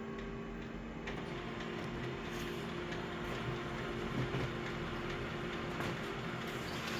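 Steady mechanical whirring hum with a few faint clicks, from a small machine running.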